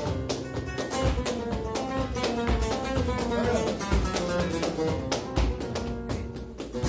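Flamenco guitar playing with rhythmic palmas, hand clapping from three performers keeping the compás.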